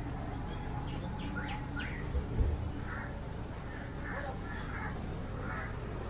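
Crows cawing several times in the second half, with a few quick, higher bird calls in the first two seconds, over a steady low background rumble. A couple of brief low thumps about two seconds in.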